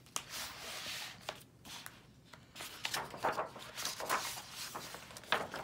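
Pages of a hardcover picture book being turned by hand: a long papery rustle through the first second and a half, then several short swishes and taps as the endpapers are turned and smoothed flat.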